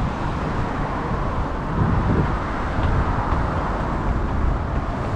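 Steady road traffic noise: cars passing on a busy road.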